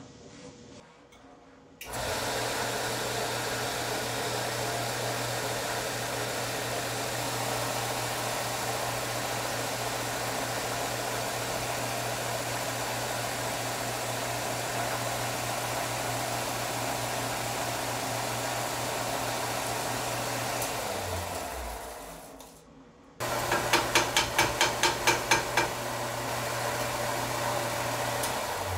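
A 6x48 belt and disc sander's electric motor is switched on about two seconds in and runs steadily with a constant hum and the rush of the moving belt. Near the end it is switched off and winds down over a couple of seconds, then is switched back on, with a rapid regular ticking of about five a second for a couple of seconds just after the restart.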